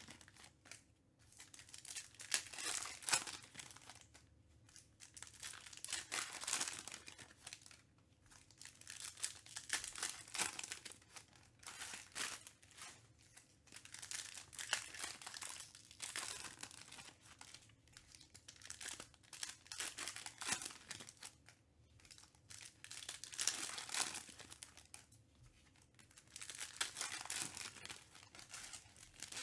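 Foil trading-card packs being torn open and crinkled by hand, one after another, in bursts of crinkling every few seconds.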